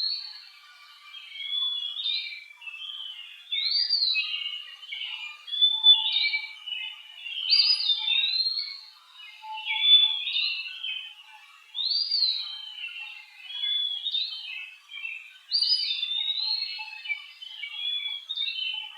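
A bird whistling the same phrase over and over, about once every two seconds. Each phrase has a clear whistle that rises and falls, tangled with quicker, lower notes.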